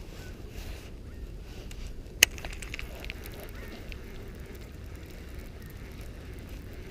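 Riverside outdoor ambience: a steady low rumble with faint, distant bird chirps, and one sharp click about two seconds in.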